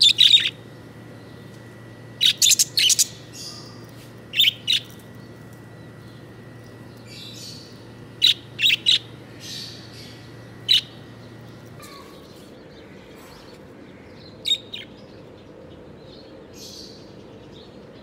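Caged budgerigars chirping: short, sharp, high calls in little clusters of two to four every couple of seconds, with gaps between.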